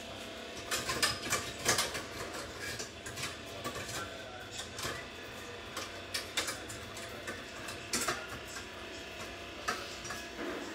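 Irregular light clicks and knocks of kitchen utensils and cookware being handled, over a steady hum; the loudest clatter comes about a second or two in and again around eight seconds in.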